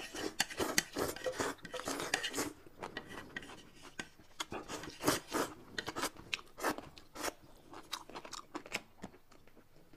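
Close-up eating sounds: slurping and chewing, with chopsticks scraping and clicking against a plate, in quick irregular bursts that thin out after the first few seconds.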